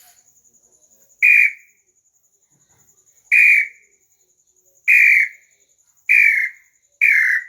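Bird-call whistle (pio) being blown to imitate a bird: five short, clear whistled notes, each bending slightly downward, coming faster and faster. A faint steady high-pitched chirring runs underneath.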